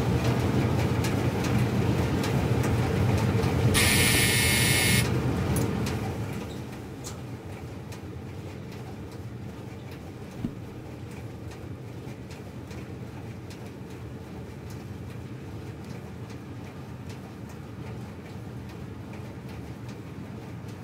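Steady rumble and low hum of laundromat washing machines and dryers running, louder for the first six seconds and then lower. About four seconds in a harsh buzz lasts about a second, and a single sharp click comes about ten seconds in.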